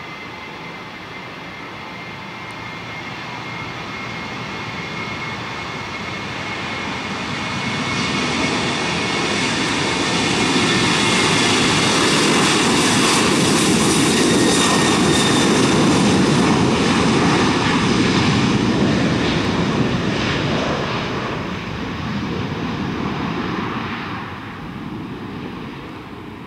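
Boeing 737 turbofan engines as the jet moves past: a steady high whine, then a rushing rumble that swells over several seconds, holds loudest for a while and fades near the end.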